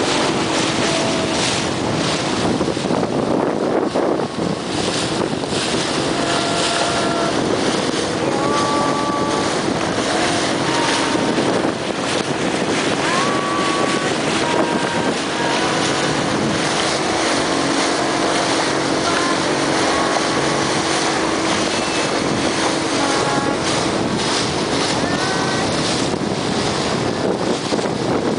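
Motorboat engine running steadily under way, with wind buffeting the microphone and water rushing along the hull.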